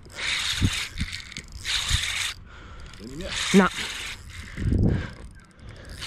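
Spinning reel being wound in short turns while a hooked fish is played in on a bent rod, with a few low knocks from handling the rod.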